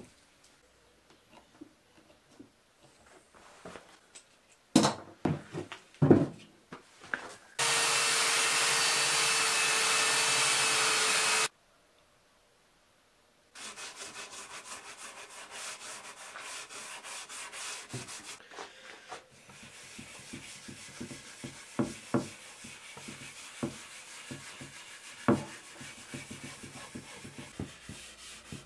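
Woodworking on a wooden hexagon shelf. First a few knocks as the wood is handled, then a power tool runs loudly and steadily for about four seconds and stops. After a short silence comes a long stretch of scratchy sanding: at first by hand with a sanding block rubbed back and forth, later quieter and steadier with an electric orbital sander on the shelf's face, with scattered small ticks.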